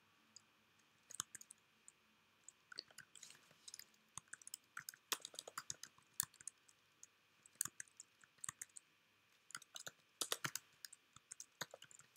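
Faint clicking of a computer keyboard and mouse: keys tapped in short, irregular clusters with pauses between.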